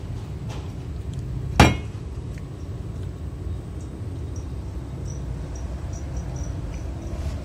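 A single sharp metallic clank with a brief ring about a second and a half in, steel striking steel, over a steady low rumble.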